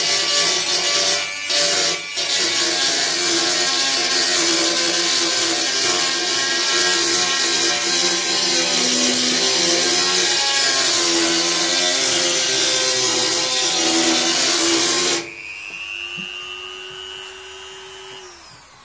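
Small low-powered rotary tool with a diamond disc grinding the edge of toughened glass: steady grinding over the motor's whine. About fifteen seconds in the grinding stops suddenly and the tool's whine alone carries on, fading out near the end.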